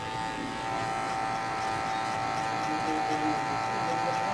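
Electric hair clipper running with a steady buzz while cutting short hair at the back of the neck for a low fade.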